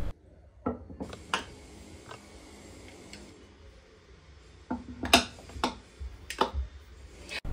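Glass storage jars with steel lids being picked up and set down on a shelf: light clinks and knocks, a few in the first second and a half, then a quick cluster in the last three seconds.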